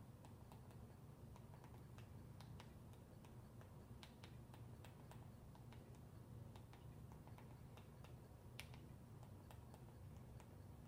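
Faint, irregular clicks of Roku remote buttons being pressed over and over to pick out letters on an on-screen keyboard, over a low steady room hum.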